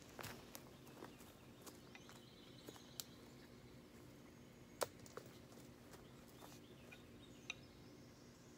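Quiet woodland with a few soft footsteps at the start, then scattered sharp clicks and taps as a hatchet is handled, one louder click about five seconds in.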